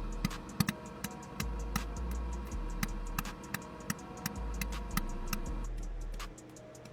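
Background music with a ticking, click-like beat over a low, sustained bass line; the bass drops out and the music thins about six seconds in.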